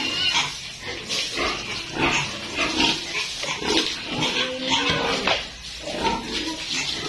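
Pigs grunting, many short calls following closely one after another and overlapping.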